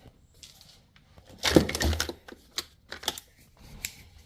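Hard objects being handled and set down by hand: a clatter about a second and a half in, followed by a few sharp clicks.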